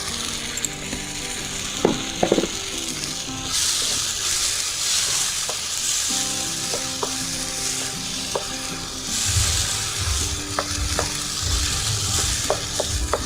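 Tomato puree sizzling in hot ghee with fried onions, ginger, garlic and green chilli in a pan, with stirring. The sizzle grows louder about a third of the way in, and the spoon clicks against the pan in the second half.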